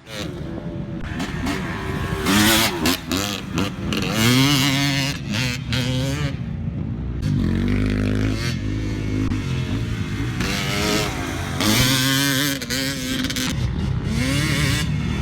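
250 cc motocross bike engine being ridden hard, revving up and dropping back again and again as the rider works the throttle and gears, with bursts of wind rush.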